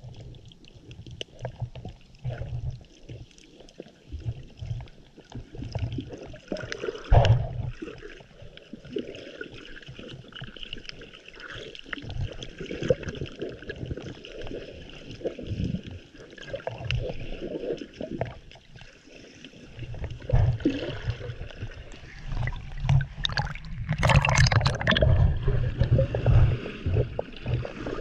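Water sloshing and gurgling around a GoPro HERO6 held just under the surface while snorkeling, heard muffled through the water as irregular low thumps. It gets louder near the end, with a brief splashy burst.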